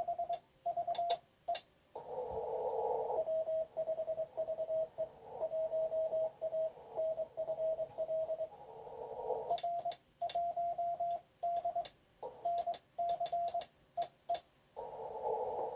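Morse code (CW) tones, a single pitch of about 650 Hz keyed in dots and dashes, from an amateur radio transceiver on the 20-meter band during an exchange of call signs and reports. Bursts of narrow-filtered receiver hiss come between the sendings, and sharp clicks come along with some of the keyed characters.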